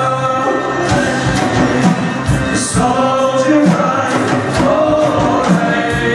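Live folk-rock band playing: a dhol drum beating steady strokes under double bass, guitar and keyboards, with voices singing over them.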